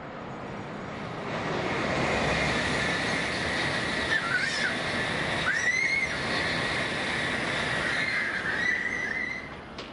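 N700-series Tokaido Shinkansen bullet train passing at high speed. A wide rushing noise of wheels and air builds over the first couple of seconds, holds steady for several seconds with a few short high squeals, then fades near the end.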